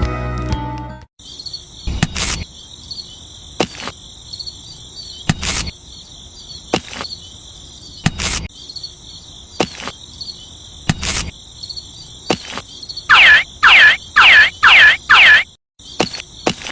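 Steady high cricket chirring, with sharp knocks every second or so. Near the end come five loud, quick, downward-sliding whistles in a row.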